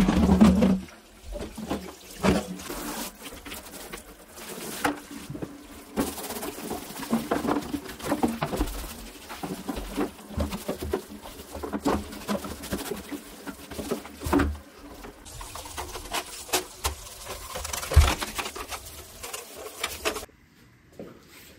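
Water from a shower hose running and splashing into a plastic pet carrier as it is rinsed and scrubbed by hand, with irregular knocks and rattles from the plastic shell and its metal grille door. The sound stops abruptly near the end.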